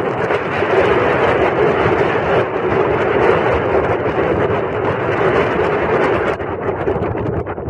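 Strong mountain wind in a snowstorm blowing across the camera's microphone: a loud, steady rush of noise that barely lets up.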